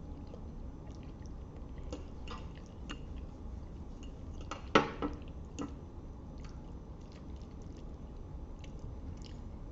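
Spaghetti being chewed, with scattered small wet mouth clicks and one sharper, louder click a little before the middle.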